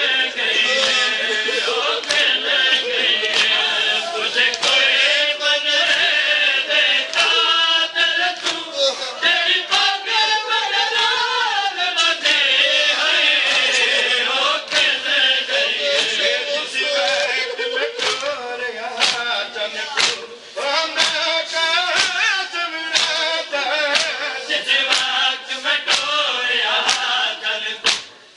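Men's voices chanting a noha, a Shia mourning lament, together in chorus, with sharp slapping beats now and then through the chant.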